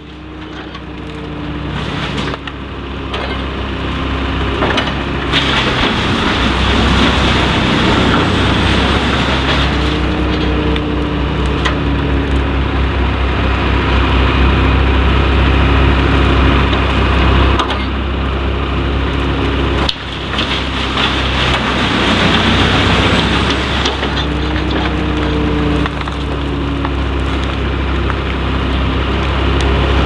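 Bruks wood chipper on a Scania R620 8x4 truck chipping brush and treetops, with the truck's V8 running hard under the load. Wood crackles and splinters over a steady deep engine note. The engine note sags and recovers a few times as the feed load changes. The sound fades in over the first few seconds.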